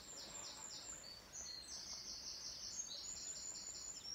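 A small bird singing high, rapidly repeated notes, several a second, in three short runs.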